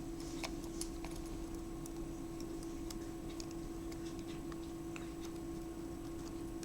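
Scattered faint clicks and taps of small plastic camera parts being handled and fitted together, over a steady low hum.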